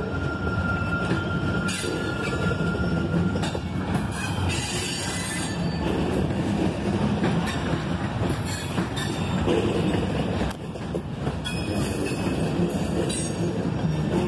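Ballast hopper cars of a freight train rolling past at slow speed, a steady rumble of wheels on rail. A thin wheel squeal carries through the first few seconds and then stops.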